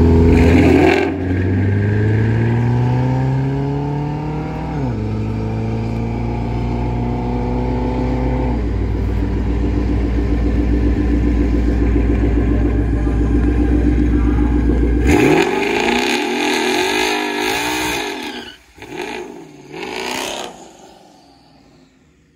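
Twin-turbocharged 5.0 Coyote V8 of a Ford Mustang GT running at high revs, its pitch climbing and dropping suddenly twice. About 15 seconds in the revs fall away, a few short blips follow, and the sound fades off near the end.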